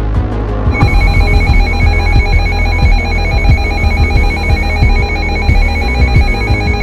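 Emergency Alert System warning tone, a loud, rapidly trilling high electronic alert that begins about a second in. It sounds over electronic music with a steady low beat.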